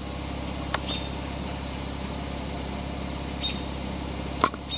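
Porsche 991 Turbo's twin-turbo flat-six idling steadily at operating temperature, heard from the cabin, for the car's electronic oil-level measurement. A few short clicks sound over it, the sharpest near the end.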